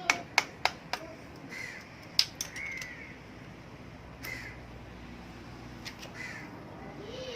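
A crow cawing repeatedly, short harsh calls a second or two apart. There are also a few sharp metallic clicks in the first second and a single loud one about two seconds in, from tools on the engine's cylinder block nuts.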